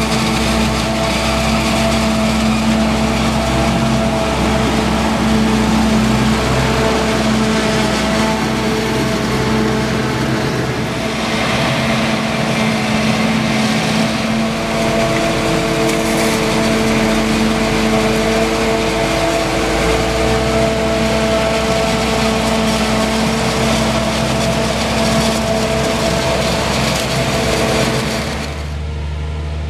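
Claas forage harvester and tractor running at working speed while chopping maize into a silage wagon: a loud, steady diesel-engine and machinery hum with several held tones. Near the end the sound drops and turns to a lower engine note from a tractor hauling a loaded wagon.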